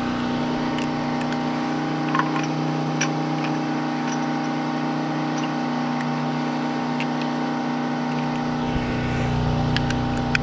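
Steady machine drone, engine- or motor-like, with a few light clicks; its low rumble fades for most of the stretch and comes back near the end.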